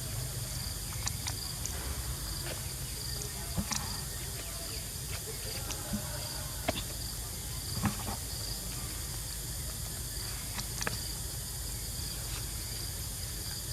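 Insects chirping in a steady, high pulsing trill over a low rumble, with scattered short clicks and knocks.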